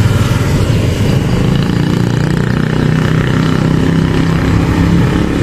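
A vehicle engine running nearby, a steady low hum.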